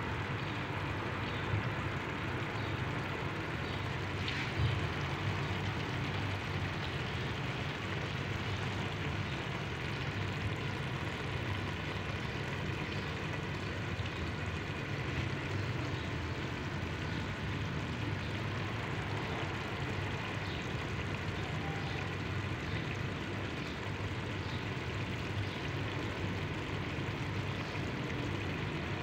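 A pot of chana dal with potatoes cooking on the stove: a steady low rumble with faint scattered ticks and pops.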